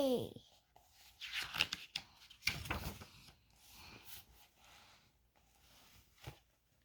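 Paper rustling and handling noises from a picture book's pages being turned, in two short clusters about one and two and a half seconds in, then fainter scattered rustles. It opens on the tail of a held, falling vocal note.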